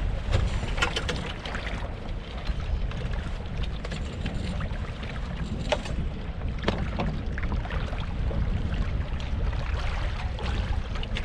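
Wind on the microphone and water along the hull of a sailboat under way, a steady low rumble, with a few light knocks and clicks about a second in and again around six to seven seconds in as the rigging and lines are handled.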